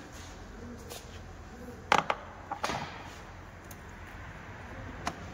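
A few sharp clicks and knocks of plastic and metal parts being handled as the air filter housing is taken off an engine, over a steady low hum. The loudest two come close together about two seconds in, a couple more follow just after, and one comes near the end.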